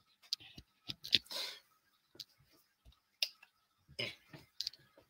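Scattered faint clicks and light taps, with a short rustle about a second in.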